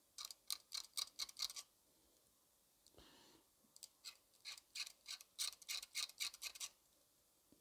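Hobby knife blade scraping mold lines off a small plastic model part in quick short strokes: light scratchy clicks about five a second, in two runs with a pause of about two seconds between.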